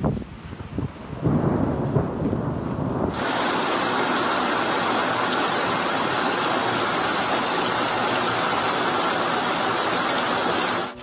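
Low rumble of thunder, then from about three seconds in a steady, dense hiss of heavy rain that stops just before the end.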